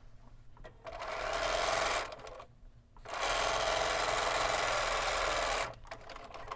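Bernina B 770 Quilters Edition sewing machine stitching a seam through quilting cotton, in two runs: about a second of sewing, a short stop, then about two and a half seconds more.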